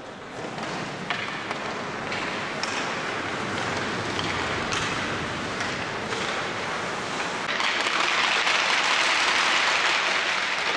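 Ice rink noise of clapping and clicking stick taps mixed with skates scraping the ice, swelling louder about three-quarters of the way through.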